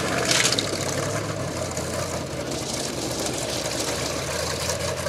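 Formula Offroad car's engine running steadily at low revs as the car rolls slowly, with a short burst of noise about half a second in.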